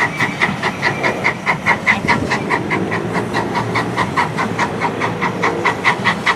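NER H Class (LNER Y7) 0-4-0 tank steam locomotive No. 1310 working, its exhaust chuffing in an even rhythm of about five beats a second.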